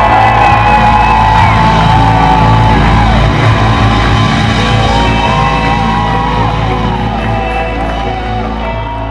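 Live rock band playing at full volume: drums, electric guitar and keyboards, with long wavering held notes. The music fades down gradually over the last few seconds.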